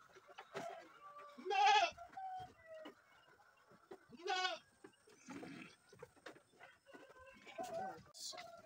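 Goats bleating: two loud, wavering bleats about one and a half and four seconds in, with fainter animal sounds between them.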